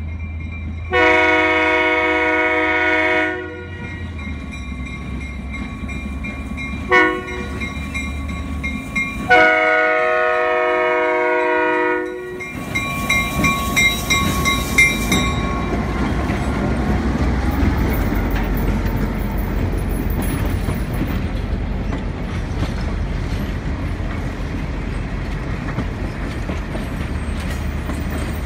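Diesel locomotive horn blowing a long blast, a short toot and another long blast, in the pattern of a grade-crossing warning. Then the locomotive passes close by, its diesel engine rumbling and the passenger car wheels clicking over the rail joints.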